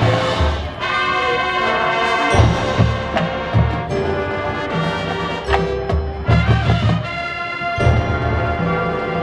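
High school marching band playing its field show: brass chords held over repeated low drum hits.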